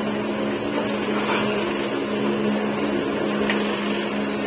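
A small motor running with a steady, even hum at a fixed low pitch.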